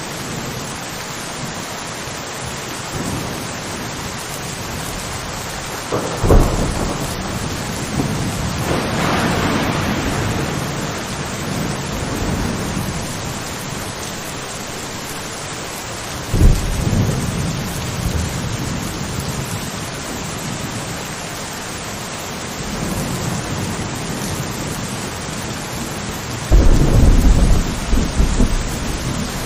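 Steady rain with rolls of thunder: a sharp clap about six seconds in that rumbles on, another about sixteen seconds in, and a longer, heavier rumble near the end.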